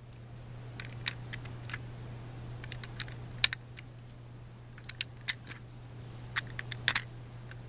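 Plastic Lego bricks clicking and clattering as they are picked up and pressed into place, in scattered sharp clicks at irregular intervals.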